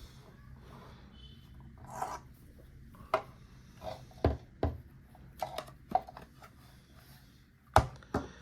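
Handling noise from a compressor nebulizer being turned over and shown: rubbing and scraping with scattered sharp clicks and knocks, the loudest knock near the end.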